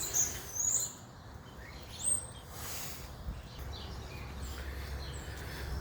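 Small bird chirping: a quick series of short, high chirps in the first second, then one more about two seconds in, over a low steady outdoor rumble.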